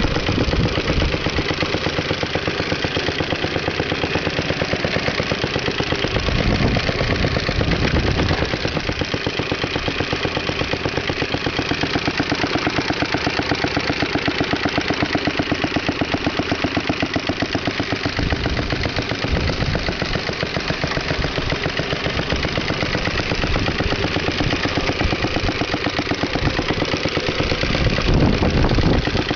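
Briggs & Stratton 5S single-cylinder four-stroke engine on a 1953 Toro Sportlawn mower running steadily at an even, fast beat, with a few brief low rumbles.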